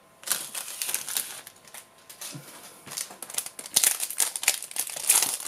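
Foil Yu-Gi-Oh booster pack wrapper crinkling as it is handled and then torn open by hand. The sound comes in two spells: a short one starting just after the beginning, and a longer, denser crackling from about three seconds in until just before the end.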